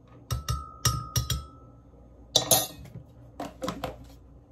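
A metal spoon taps five times on a glass blender jar, and the jar rings briefly after the taps. This knocks the last cocoa powder off the spoon. About halfway through there is a clatter, then three quick clinks as the spoon and utensils are set down on a small dish.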